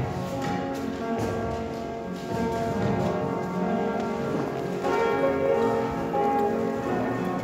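A male voice choir singing a gospel song in harmony, with long held chords that change about once a second.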